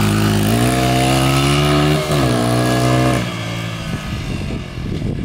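Small Honda XR four-stroke single-cylinder dirt bike accelerating away. Its engine pitch rises, drops briefly at a gear change about two seconds in, and rises again. After about three seconds the engine sound fades as the bike moves off up the street.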